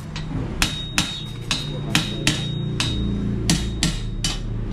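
Hammer blows struck repeatedly and evenly, about two a second, as a motorcycle tyre is worked off its alloy rim, with a faint metallic ring after some strikes.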